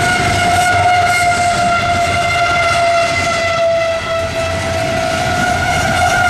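Locomotive horn held in one long continuous blast, its pitch dropping slightly about four seconds in, over the low rumble of the passing train.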